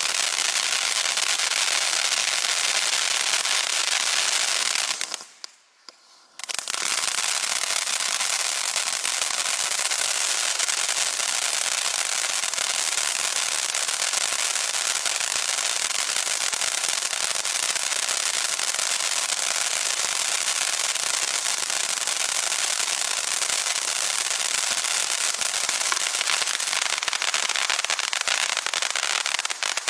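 A Winda 'Bucket of Fun' consumer fireworks fountain spraying sparks with a dense, steady hissing crackle. The sound cuts out for about a second around five seconds in, then starts again and carries on evenly.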